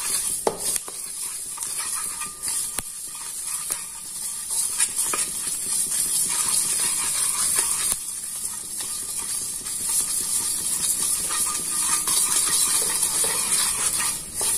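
Wooden spatula stirring whole spice seeds (cumin, fenugreek, nigella, fennel and ajwain) around a hot pan as they roast on a low flame. A steady scratchy rustle with many small clicks as the seeds skitter across the metal.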